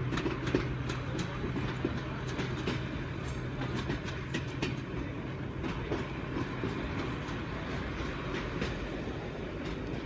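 Class 101 diesel multiple unit running, heard from inside the carriage. A steady low engine hum drops away about halfway through, under a rumble with irregular clicks and knocks from the wheels on the track.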